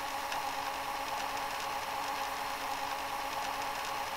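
A steady whirring sound effect, a few held tones over a hiss, played over sped-up fast-forward footage. It does not rise or fall.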